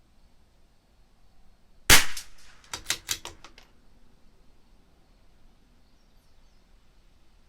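A single .22 LR rimfire shot, SK Semi Auto ammunition, fired from a CZ 457 LRP bolt-action rifle as one of the fouling shots, a sharp crack about two seconds in. About half a second later comes a quick run of about seven metallic clicks as the bolt is worked to eject the case and chamber the next round.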